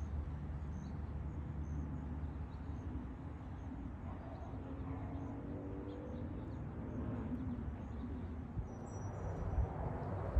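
Outdoor ambience: a steady low rumble of distant engines, with a passing engine tone that slides in pitch through the middle, and faint high chirps repeating throughout.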